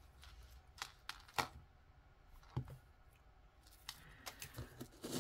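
Light, scattered clicks and taps of metal costume jewelry being handled: a gold-tone chain necklace and pendant clinking against fingers and rings.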